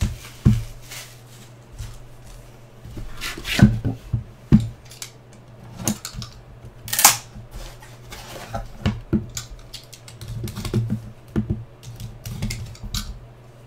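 Hands handling and opening a cardboard Panini National Treasures box: irregular knocks and taps as the box is moved and set down, and cardboard sliding and scraping as the lid comes off and the inner box is lifted out, over a low steady hum.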